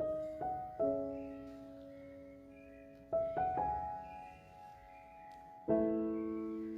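Slow, gentle piano background music: soft notes and chords struck a few at a time, each left to ring and fade.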